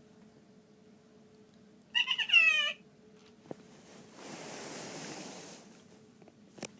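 An electronic talking toy gives a short, wavering call that slides down in pitch, about two seconds in. A softer hiss of about a second and a half follows, with a couple of faint clicks.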